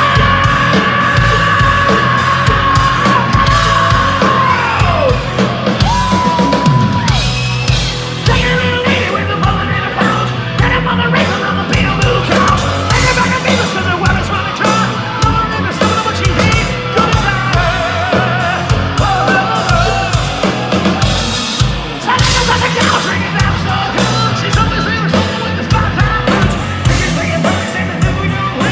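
Live hard rock band playing: distorted electric guitars, bass and drums at full volume. A high vocal note is held at the start and slides down, breaking off about four to five seconds in, as the band plays on.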